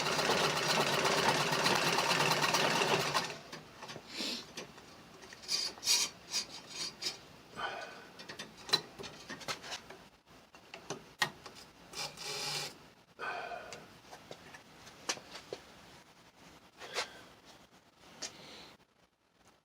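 Antique Singer Model 27 vibrating-shuttle treadle sewing machine stitching for about three seconds, a fast even rattle that stops suddenly. After it come scattered light clicks and knocks.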